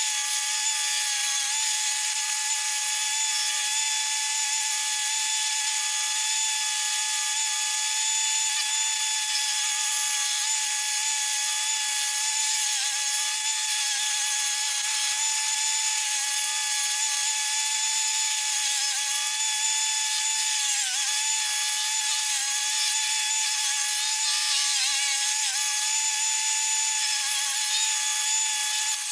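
Spartan stump grinder attachment on a Toro Dingo TX525 mini skid steer running and grinding, a steady high whine with a rasping edge. The whine dips briefly in pitch about two-thirds of the way through.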